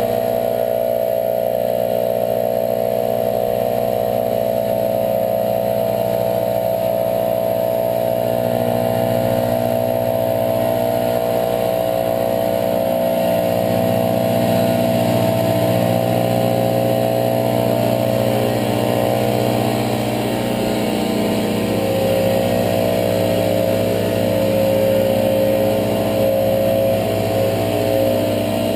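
Gas backpack leaf blowers running steadily at high throttle, a continuous engine drone that shifts slightly in pitch now and then as the operators work the leaves.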